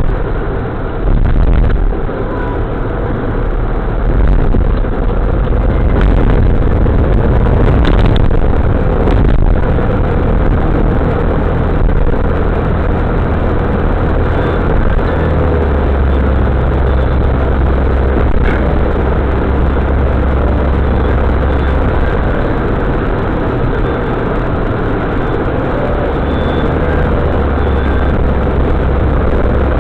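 Steady low rumble of a vehicle running, engine and road noise with no break.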